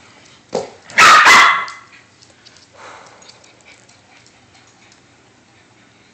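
Small dog barking: a short yip, then two loud barks in quick succession about a second in, and a softer one near three seconds.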